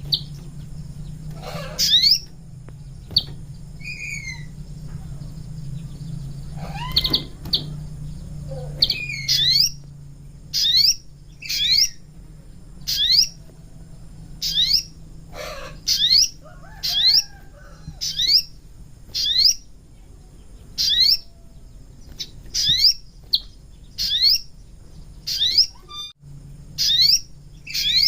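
Sogon bird calling: short, sharp, high-pitched chirps repeated about once every second, over a steady low hum. This is a lure call, played to draw wild sogon in.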